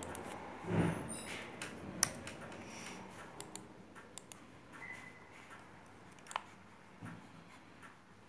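Scattered sharp clicks of a laptop touchpad being operated, loudest about two seconds in and again near the end. A duller, louder thump comes a little under a second in.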